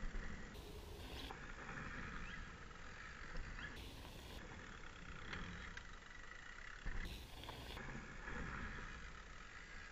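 Quiet forest ambience with a steady background hum and a few short bird chirps.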